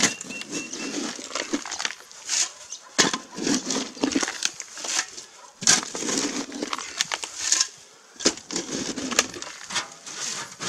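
Loose dry soil scraped and scooped out of a hole by hand with a plastic container: a run of scraping, crunching rustles with a few sharp knocks.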